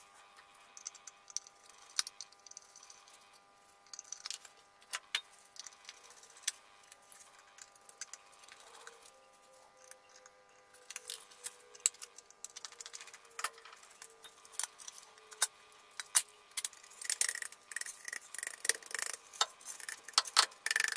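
Scattered small clicks and metal clinks of a screwdriver taking screws out of an aircraft instrument's metal case and the case being handled, busier over the last few seconds as the inner assembly slides out of its housing.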